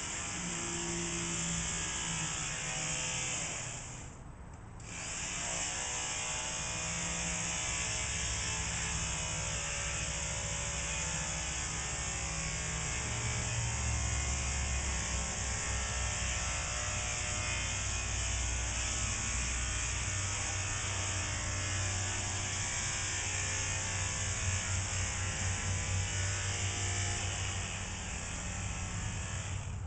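Electric horse clippers running with a steady buzz while trimming a horse's bridle path. About four seconds in the motor winds down briefly, then picks up again.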